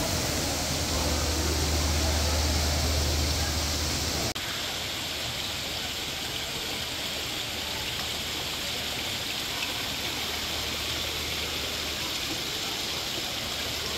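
Steady rushing of running water. A low hum underneath cuts off abruptly about four seconds in, leaving an even hiss.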